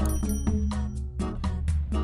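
Upbeat background music with a steady beat, about four strokes a second, over a bass line. A brief high shimmering chime sounds at the start.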